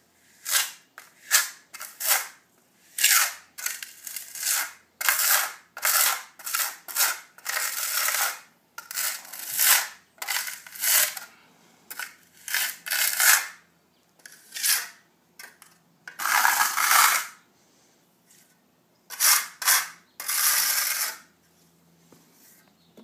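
Steel trowel scraping across a concrete pool wall as hydraulic cement is spread and smoothed over crack-repair staples: many short scrapes in quick succession, then a few longer strokes with pauses near the end.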